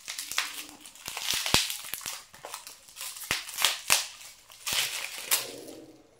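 Clear plastic wrapping crinkling and crackling as it is cut and pulled away from a small packaged box, with many sharp clicks scattered through it.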